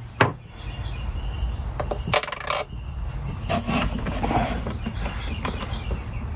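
Small metallic clinks and taps, with a quick cluster about two seconds in, as a cable's ring terminal and hardware are handled against a battery post. A steady low background rumble runs underneath.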